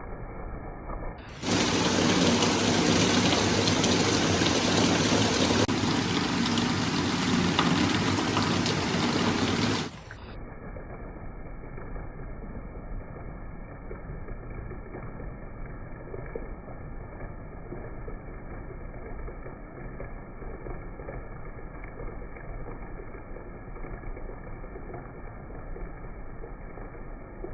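Heavy rain: a loud, bright, steady hiss starting about a second and a half in that stops suddenly about ten seconds in, giving way to a quieter, duller rushing noise.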